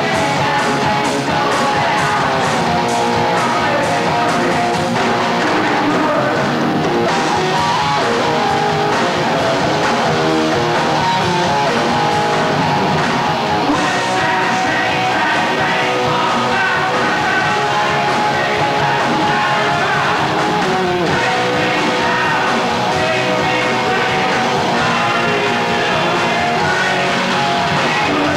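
Heavy metal band playing live: electric guitars, drums and a lead singer, loud and continuous.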